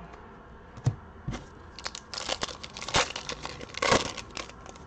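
A foil 2021 Prizm Basketball card pack being torn open by hand, its wrapper crinkling and tearing in loud crackly bursts. Two light knocks come about a second in, before the tearing starts.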